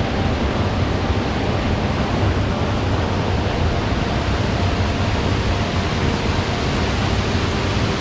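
Mountain stream rushing steadily over rocks, an even white-water noise with no breaks.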